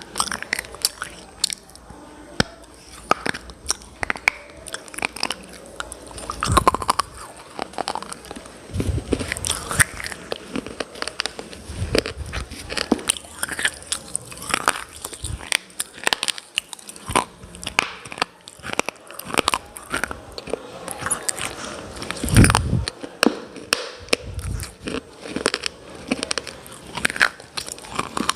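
Close-miked, repeated crunching of someone biting into and chewing hard, brittle chalky pieces, such as slate pencils or clay cubes. The crunches come as dense, irregular cracks, with a few heavier bites.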